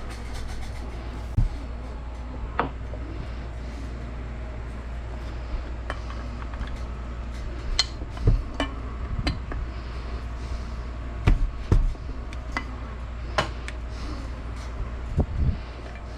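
Irregular metallic clicks and knocks as parts of an AR-pattern rifle are handled and taken apart, over a steady low hum.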